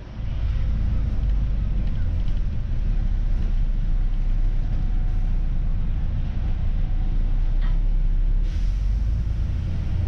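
Bus running along a street, heard from its upper deck: a steady low engine and road rumble, with a brief hiss near the end.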